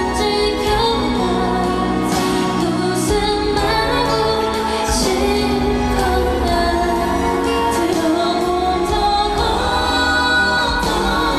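Live female lead vocal sung into a handheld microphone over the backing music of a slow pop ballad, with a second singer taking the line near the end.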